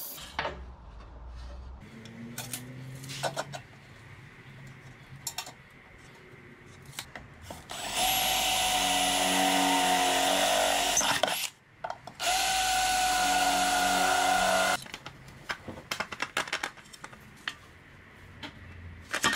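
An electric drill runs twice, each time for about three seconds with a steady whine, with a short stop between. Scattered clicks and knocks from handling the metal pieces come before and after.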